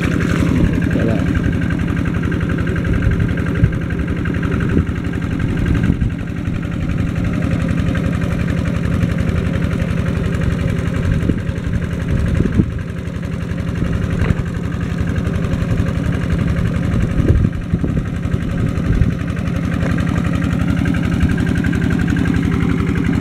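A small engine running steadily with an even low hum, the pump engine draining the pond. A few short sharp sounds stand out over it.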